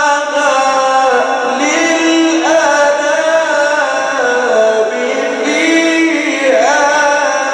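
Male Quran reciter chanting in the melodic mujawwad style: one voice holding long, ornamented notes that wind up and down. The voice climbs to a higher held note about two seconds in and again about five and a half seconds in.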